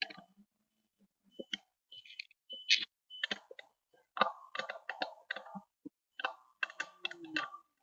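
Irregular clicks and scraping from a satellite dish being nudged by hand on its pole mount during alignment.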